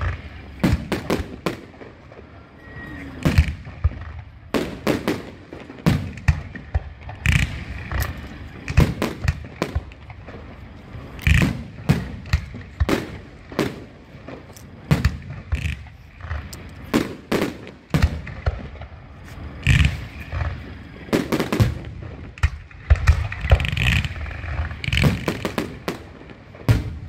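Fireworks going off: dozens of sharp bangs at an irregular pace, some in quick clusters, throughout.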